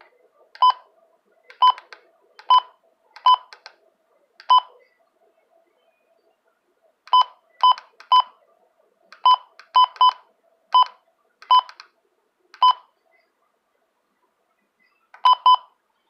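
Button beeps from an electronic device: about sixteen short, identical beeps at an irregular pace, some in quick pairs, each with a faint click, as its keys are pressed.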